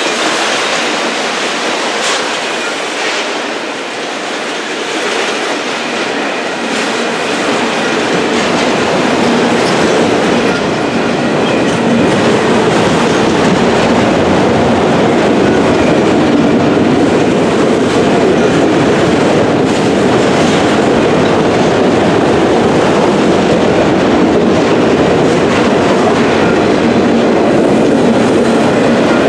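Freight train of autorack cars rolling past close by: a steady rumble of steel wheels on the rails, with clicking over the rail joints. It grows louder about ten seconds in and then holds steady.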